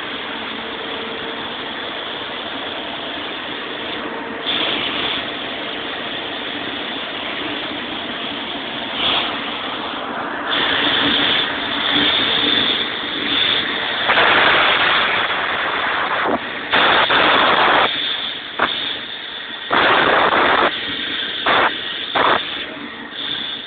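Refurbished Sullair 16-100 engine-driven air compressor running steadily. From about ten seconds in, several loud rushing bursts, some about a second or two long and some brief, rise over the running sound.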